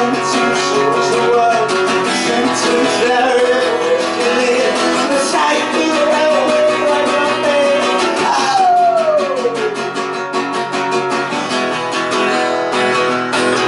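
Live acoustic guitar strumming with a melody line over it that slides down in one long fall about eight seconds in.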